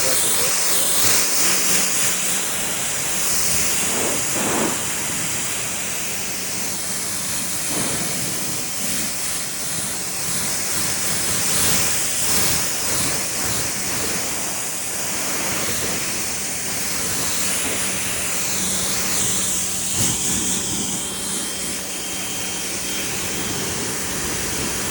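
Pressure washer spraying a steady hissing jet of water, rinsing snow-foam soap and pollen off a truck's paint, with a faint steady motor hum underneath.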